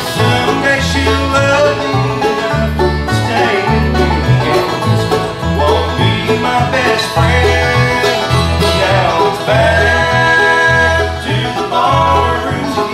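Bluegrass band playing live: banjo, mandolin, acoustic guitar and fiddle over an upright bass plucking a steady two-note walking pattern.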